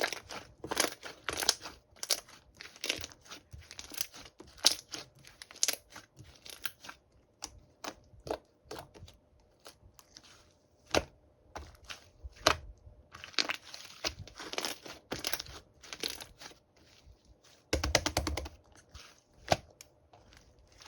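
Close, irregular crinkling and crunching: a quick run of sharp crackles and short rustles, with a thicker burst of crackling near the end.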